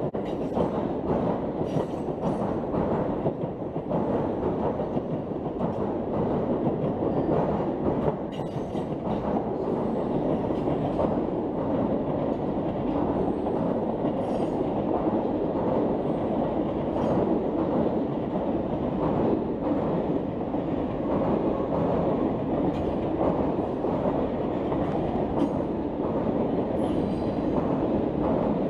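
Amtrak Auto Train rolling past close by over a railroad bascule bridge, passenger cars and then enclosed auto-carrier cars: a steady rumble of steel wheels on rail with scattered clicks.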